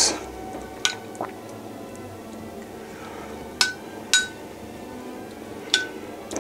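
Metal spoon clinking against a small ceramic bowl about five times, each a sharp tap with a brief ring, as mayonnaise marinade is scooped out and spread over fish fillets.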